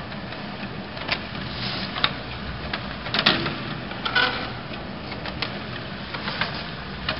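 GER Loto S 3200 leather measuring machine running as a hide is fed through and measured. It makes a steady low hum, with sharp clicks and knocks about once a second.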